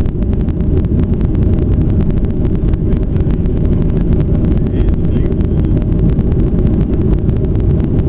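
Steady, loud jet engine and airflow roar inside an airliner cabin during takeoff, a deep even rumble with no distinct events.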